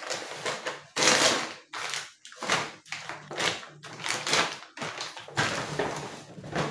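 Groceries being handled: packaging rustling and light taps in several short bursts, about one a second, as the milk packets are laid out.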